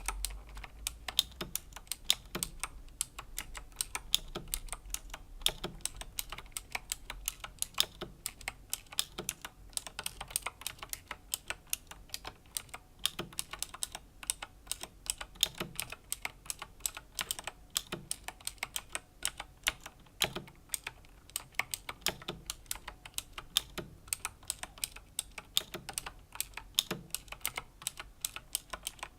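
Slow typing on a Razer BlackWidow Chroma V2 mechanical keyboard with clicky Razer Green switches: an irregular run of sharp key clicks, several a second, with an occasional deeper thud among them.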